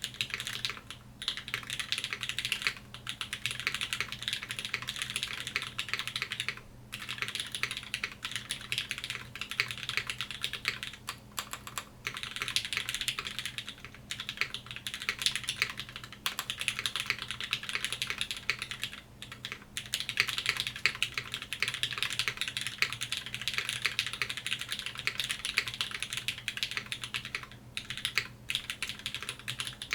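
Fast, continuous typing on a Velvet Pro custom mechanical keyboard with lubed Cherry MX Black linear switches in a full aluminium plate, capped with GMK keycaps. The keystrokes come in a dense stream with a few brief pauses, picked up by a camera's built-in microphone.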